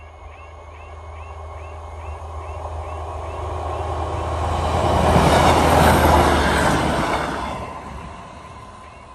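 Class 156 diesel multiple unit passing the crossing: its rumble builds, peaks about five to six seconds in, then dies away over the next two seconds. At the start the crossing's miniature-stop-light warning alarm is heard chirping about four times a second before the train drowns it out.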